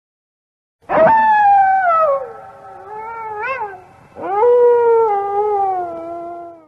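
An animal's long, drawn-out howling call, twice. The first starts about a second in, slides down in pitch and rises and falls briefly near its end. The second starts high and falls slowly.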